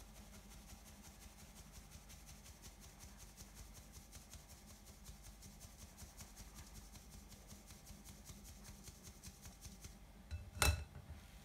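Metal mesh sieve shaken over a glass bowl to sift flour and cocoa powder: a faint, quick, regular rasping several times a second. Near the end, one sharp clink as the sieve is set down on the glass bowl.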